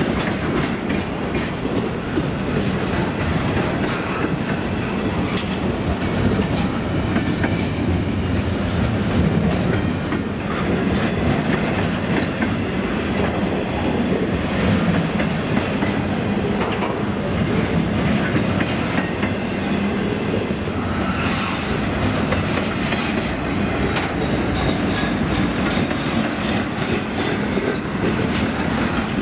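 Freight train cars rolling past at steady speed, the wheels clacking rhythmically over the rail under a continuous rumble. A brief high squeal rises about two-thirds of the way through.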